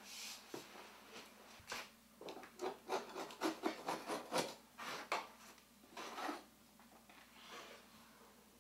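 A metal hand scraper (a painter's multi-tool) scraping along the edge of a window opening in a quick run of short strokes, several a second, easing off after about six seconds.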